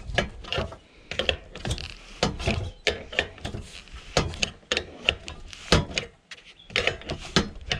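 Irregular metallic clicks and knocks, several a second, from hand tools working parts loose while an air conditioning unit is taken apart for scrap.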